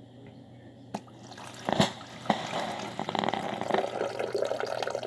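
Broken coffee machine running: after a click about a second in and two knocks, liquid sputters and dribbles through it steadily for the rest of the time.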